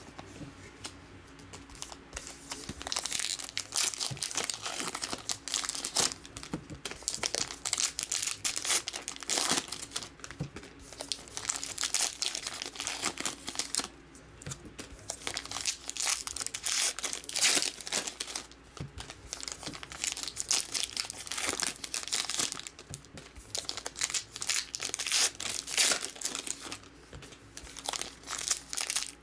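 Foil wrappers of baseball card packs crinkling as the packs are picked up, shuffled and stacked, in quick runs with short pauses.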